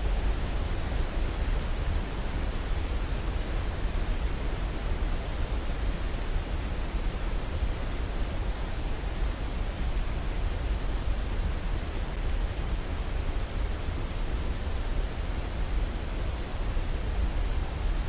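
Whitewater river rapids rushing steadily over boulders below a cascade: a dense, even wash of water noise with a deep rumble underneath.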